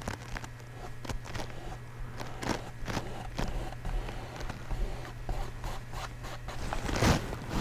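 Small paintbrush scratching and rubbing on canvas in short, irregular strokes as oil paint is worked onto it.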